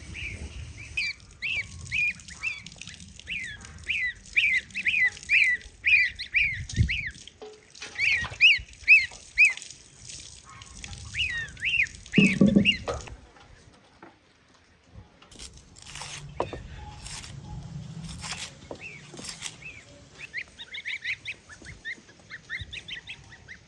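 Domestic goslings peeping, a quick run of short high calls that rise and fall. The calls pause about halfway, with a few brief scattered noises, and start again near the end.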